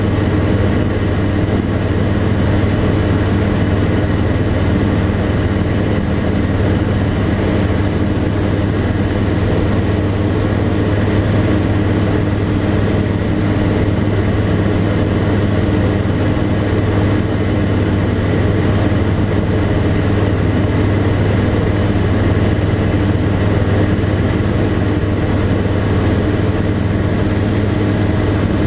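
The Tecnam P92 Echo Super's Rotax 912 four-cylinder engine and propeller running steadily in flight, heard from inside the cockpit as a constant low drone.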